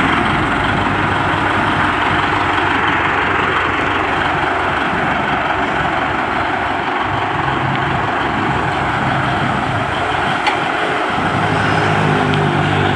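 Bulldozer's diesel engine running steadily and loudly.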